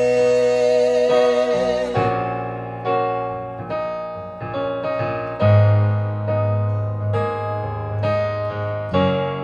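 Live pop music: a sung note held with vibrato that ends about two seconds in, then an instrumental break of electric piano chords.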